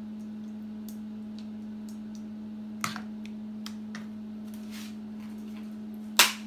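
Kitchen handling sounds over a steady low hum: scattered faint ticks and a click about three seconds in, then a sharp clack near the end as dry lasagna sheets are pulled from their cardboard box.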